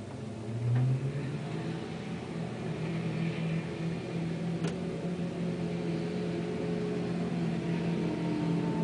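A 4x4 truck's engine running steadily, heard from inside the cab, with a brief swell in engine sound about a second in. A single sharp click comes a little past the middle.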